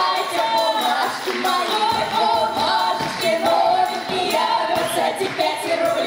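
Women's folk ensemble singing a lively Russian Cossack song in several voices, with the jingles of a hand-held tambourine marking the beat.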